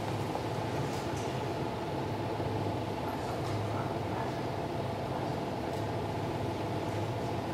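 A steady hum with several held tones, unchanging through the stretch, with no speech.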